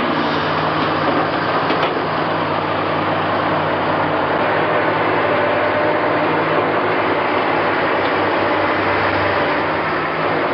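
Heavy diesel engines of a backhoe and dump trucks running steadily: a deep, even engine drone under dense mechanical noise.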